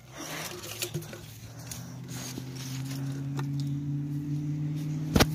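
Rustling and scattered clicks from a phone being handled, with a steady low hum coming in and growing louder underneath, and one sharp knock near the end.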